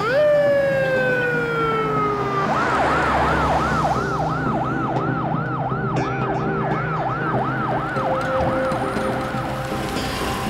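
Police car siren: one long falling wail, then a fast yelping warble of about two to three rises and falls a second that stops just before the end.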